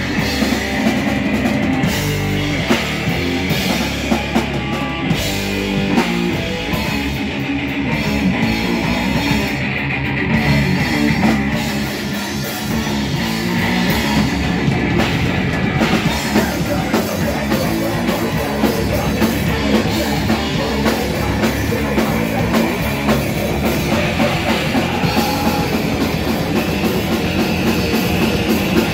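A live rock band playing loud, with electric guitars and a drum kit driving a fast, dense song.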